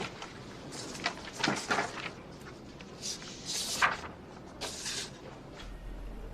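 Paper documents being handled and leafed through: a few short, soft rustles of pages.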